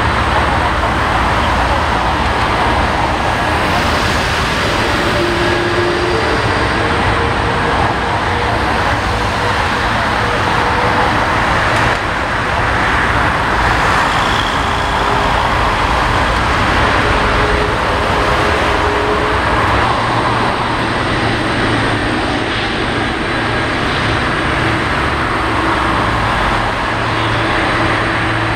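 Boeing 747-400 jet airliner taxiing on low engine power: a steady, loud rumble and hiss from its four jet engines.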